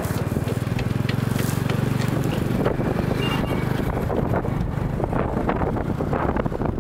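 Wind buffeting the microphone of a bike riding along a road, under a steady engine hum that fades after about four seconds.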